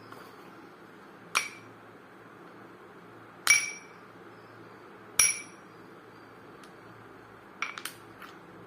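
Hard balls clinking against each other, each knock giving a short bright ring: single clinks spaced a couple of seconds apart, then a quick run of three or four near the end.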